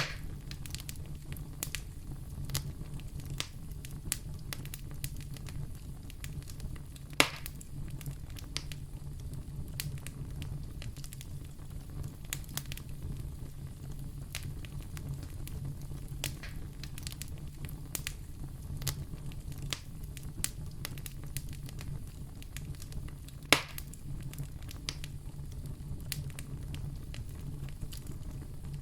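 Wood fire burning in a fireplace, crackling steadily over a low rumble of the flames, with two louder pops, about seven seconds in and near the end.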